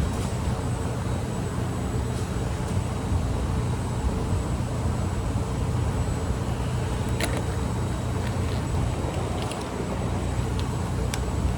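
Steady low machine rumble and hum, with a few faint clicks about seven seconds in.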